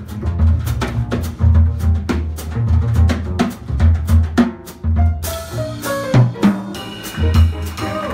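Jazz trio playing a ballad live: plucked double bass notes under drums played with brushes on the snare. About five seconds in a brighter cymbal shimmer and short runs of piano notes join in.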